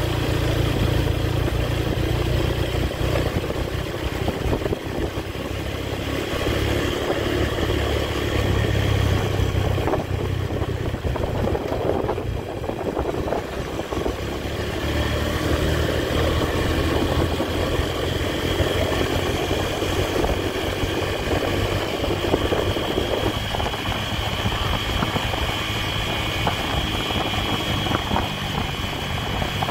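Honda Tiger's single-cylinder four-stroke engine running steadily under way as the motorcycle is ridden along the road.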